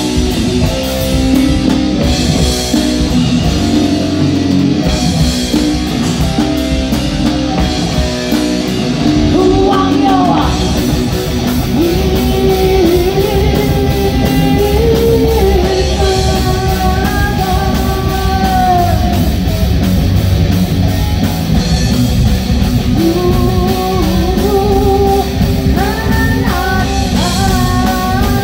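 Live rock band playing: electric guitars, bass guitar and drum kit, loud and steady, with a held, bending melody line rising above the band from about ten seconds in.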